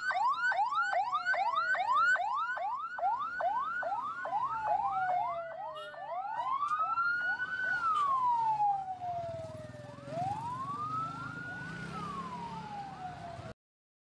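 Ambulance siren passing close: a fast yelp of about three quick rising sweeps a second, which then switches to a slow wail rising and falling over a couple of seconds each, and cuts off suddenly near the end.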